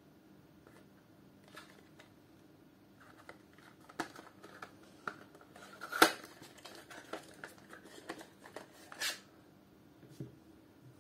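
A small paperboard box being handled and opened by hand: soft rustles and light clicks as the end flap is pried open, with one sharp snap about six seconds in and another rustling scrape about three seconds later as the contents are drawn out.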